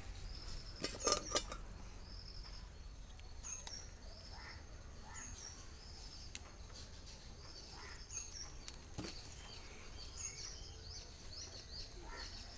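A small bird chirping again and again, a short high call every second or two. A few sharp clicks come about a second in.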